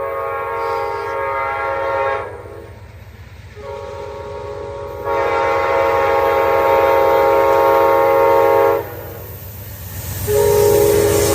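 Nathan K5LA five-chime locomotive air horn sounding a series of blasts, the longest lasting about three and a half seconds and a short one near the end, over the low rumble of the train.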